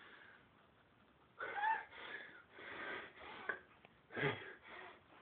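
A person's wheezy, gasping breaths in the middle of a sneezing fit: a run of short breaths starting about a second and a half in, and a sharper catch of breath about four seconds in, between sneezes.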